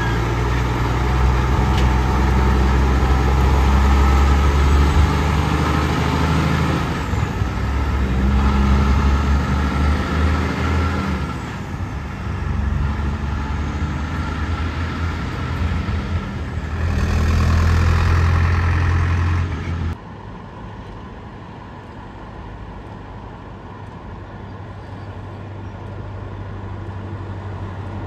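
Heavy trucks' engines running with a deep, steady hum that swells and eases. About twenty seconds in it cuts off suddenly, leaving quieter steady traffic noise.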